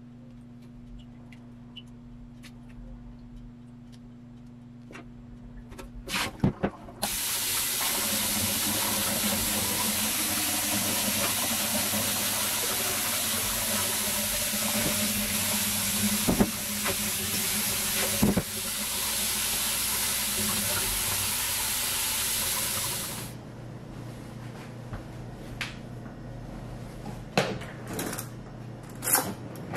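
Kitchen tap water running into a stainless steel sink, pouring onto bean sprouts in a metal mesh strainer as they are rinsed. The flow starts about seven seconds in after a few knocks, runs steadily for about fifteen seconds and then stops suddenly; a few clinks follow near the end.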